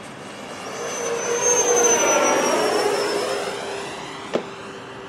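A 90 mm electric ducted-fan glider making a fly-by. The fan's whine swells to a peak about two seconds in, then fades as its pitch drops while it passes. A single sharp click comes near the end.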